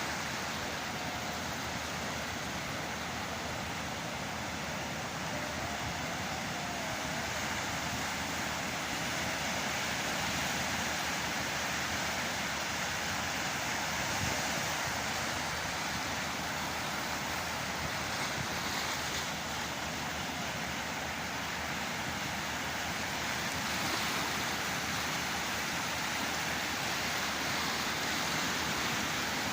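Rough sea surf: waves breaking and washing in a steady rush of noise that swells slightly now and then.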